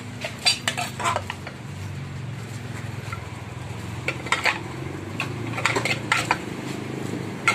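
Metal spoon clinking and scraping against an aluminium pot as minced-meat larb is mixed and scooped out. The clinks come in short clusters, about a second in, around four seconds and around six seconds. A steady low hum runs underneath.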